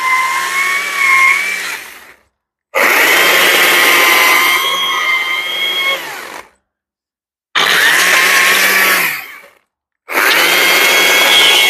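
Stihl battery chainsaw cutting wood in four bursts of two to four seconds with short stops between. Its electric motor whines at a steady pitch and winds down each time the trigger is released. The chain is worn out, on its last legs.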